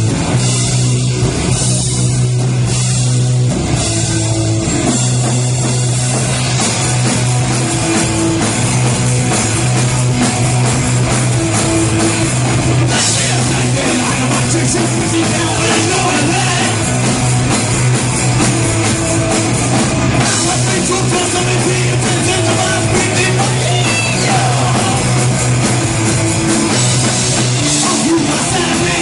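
Punk rock band playing live and loud: electric guitar, bass and drum kit, with a singer at the microphone.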